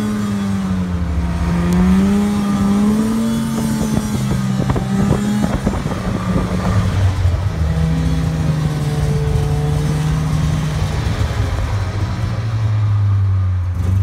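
Snowmobile engine running under way, its pitch rising and falling with the throttle. There is a rough, rattling stretch about four to six seconds in, and the engine settles to a lower, steady note near the end.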